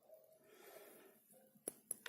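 Two small, sharp clicks close together near the end, a lock pin being set down on a hard surface; otherwise near silence.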